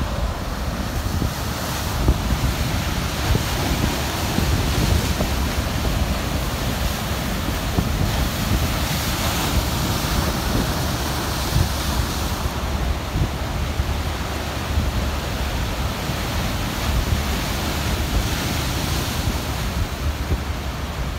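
Rough surf breaking and surging across a river-mouth bar, with strong wind buffeting the microphone as a steady low rumble.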